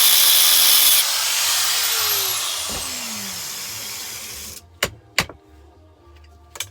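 Angle grinder cutting through metal, then let off about a second in and spinning down with a falling whine over a few seconds; a few sharp metallic knocks follow near the end.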